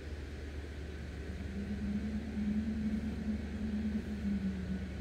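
Steady low outdoor rumble, with a low steady hum that comes in about a second in and swells slightly, like an engine nearby.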